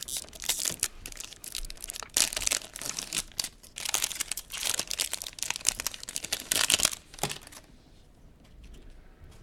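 A pack of trading cards being torn open by hand: the wrapper crinkles and tears in quick crackling bursts for about seven seconds, then the handling goes quiet.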